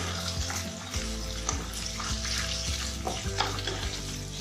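Chicken pieces frying in hot oil with onion and garlic, a steady sizzle, while a spatula stirs them with irregular clicks and scrapes against the pan.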